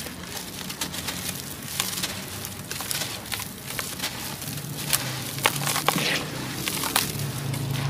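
Fingers crushing and crumbling a dry, crumbly lump, giving irregular crisp crunches and crackles, with a few sharper snaps a little past the middle.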